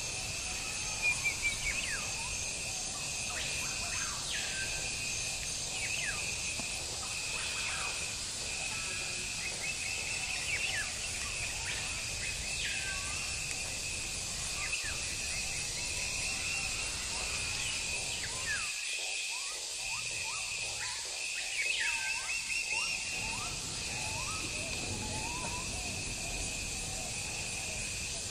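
Outdoor garden ambience: many birds chirping and calling, over a steady, pulsing insect drone.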